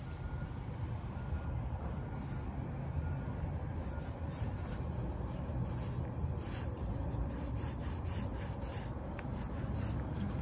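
Small paint roller rubbing back and forth over a boat transom as it spreads primer, in faint repeated strokes. A low steady rumble runs underneath.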